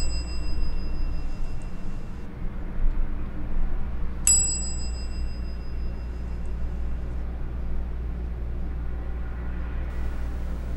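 A small bell struck once, a clear high ding about four seconds in that rings on for about two seconds, over a steady low hum.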